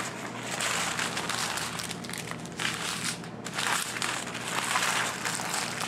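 Strips of small plastic bags of diamond-painting drills crinkling and rustling as they are handled, unfolded and laid out by hand; the crinkling swells and fades unevenly.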